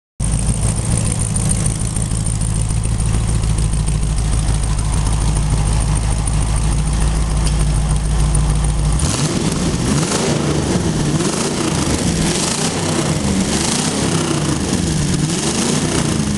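Mercedes V8 engine of a trike running at idle. About halfway through the sound changes, its note wavering up and down roughly once a second.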